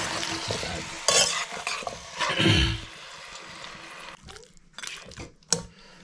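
A metal spatula stirring and scraping chunks of turkey with onion and potato around a metal wok as the meat sizzles in the hot oil. The stirring stops about four seconds in, leaving quieter sizzling and a few sharp clicks.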